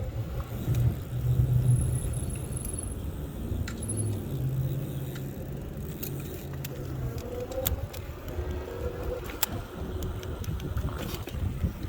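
Nanrobot Lightning 2.0 electric scooter in motion on solid tires: a constant low rumble with a hum that comes and goes, and scattered rattles and clicks.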